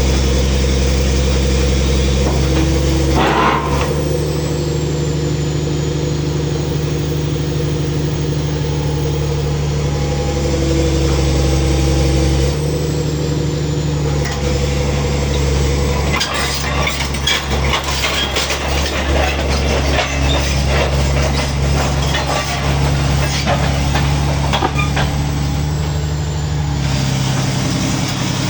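Backhoe's diesel engine running steadily, its note and load shifting a little about three seconds in and again about twelve seconds in. From about sixteen seconds to near the end, irregular metallic clanking and rattling sounds over the engine.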